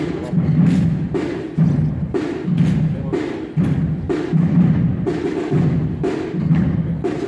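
Procession drum band playing a steady marching rhythm, with sharp repeated drum strokes over a deep pulse about twice a second.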